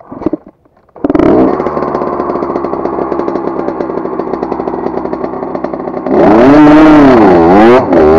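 Small two-stroke 80cc dirt bike engine running with a fast, buzzy pulse from about a second in, then revved up and down repeatedly and louder from about six seconds in, as the bike strains to climb over a log and digs in.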